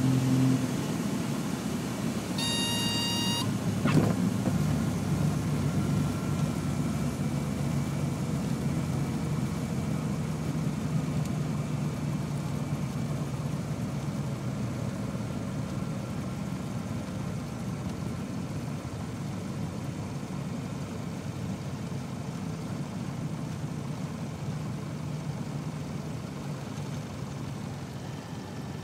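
Mooney M20F's four-cylinder Lycoming engine and propeller running at idle, heard inside the cockpit during the landing rollout and slowly getting quieter. A brief beep sounds about two and a half seconds in, followed by a click.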